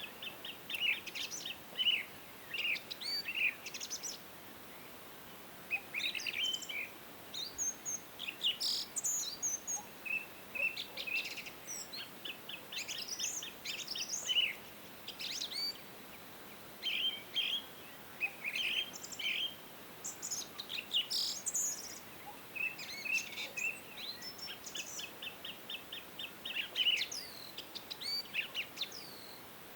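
Several songbirds singing and chirping together, a steady stream of short whistled phrases, rapid trills and high chirps overlapping one another, over a faint background hiss.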